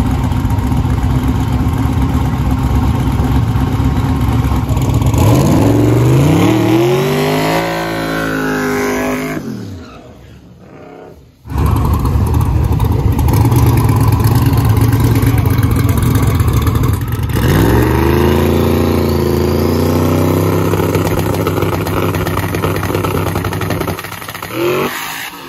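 Turbocharged El Camino drag car's engine running loud and rough, revved up twice with a rising pitch: once about five seconds in, and again near the middle, where it is held for several seconds before dropping back. It is the burnout and staging for a drag race.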